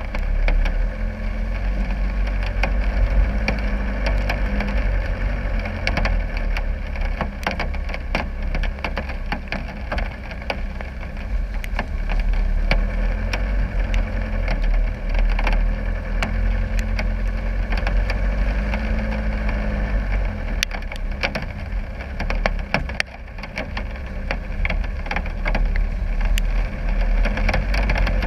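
Land Rover Discovery 300 Tdi's 2.5-litre four-cylinder turbodiesel running low and steady as the 4x4 crawls through mud, with many sharp clicks and taps over it.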